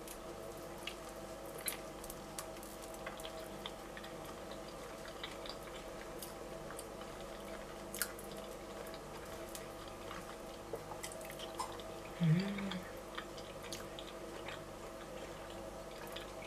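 Quiet chewing with soft, scattered mouth clicks as a piece of lightly salted pink salmon is eaten, over a steady low hum; about twelve seconds in comes a short hummed "mm".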